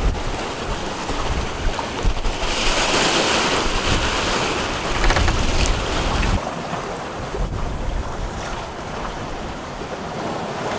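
Wind and sea waves around a sailboat under way, with a louder rushing wash of water from about two and a half to six and a half seconds in. Wind rumbles on the microphone.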